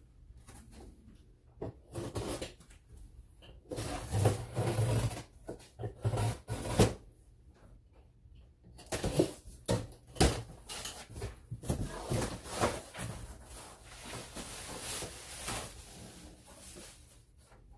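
A cardboard box being opened and unpacked by hand: rustling, crinkling bursts of packaging and cardboard with scattered light knocks and thumps.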